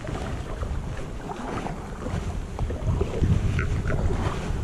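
Wind buffeting the microphone in an uneven low rumble, over small splashes and drips of water from kayak paddle strokes.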